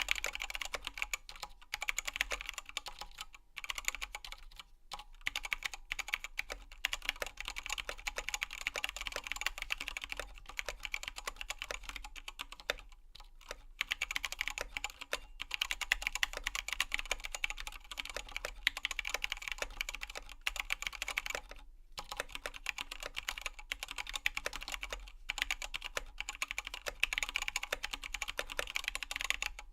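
Continuous typing on a KBD19x mechanical keyboard with Zealio tactile switches, XDA-profile keycaps and lubed screw-in stabilizers: a dense run of key clacks, broken by a few short pauses.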